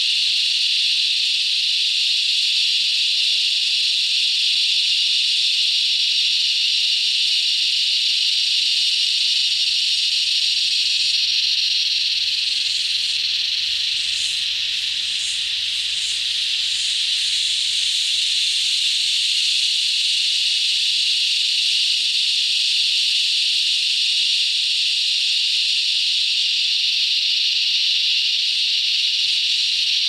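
A dense chorus of cicadas singing in unison: a loud, steady, high-pitched drone, with a few brief pulsing swells in the highest part about halfway through.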